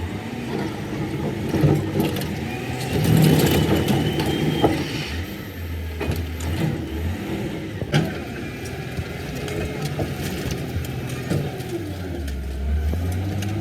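Excavator's diesel engine running, its pitch shifting now and then, with a sharp knock about eight seconds in.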